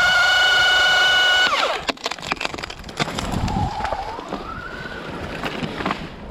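Two-stroke chainsaw held at full throttle, then let off about a second and a half in, its pitch dropping away. Sharp clicks and knocks follow, and a fainter, briefer rev rises in pitch around the middle.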